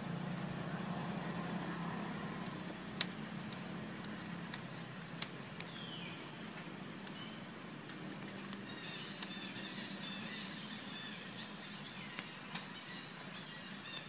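Outdoor background with a low, steady motor rumble, strongest in the first couple of seconds, broken by scattered sharp clicks, the loudest about three seconds in. A short falling chirp comes near the middle, and a run of quick high chirps follows in the second half.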